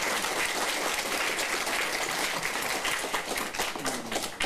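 Audience applauding after a speech, a dense run of many hands clapping that thins out near the end.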